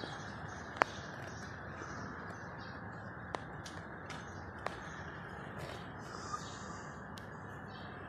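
Outdoor mountain ambience: a steady rushing noise of wind, with three sharp clicks and occasional bird calls.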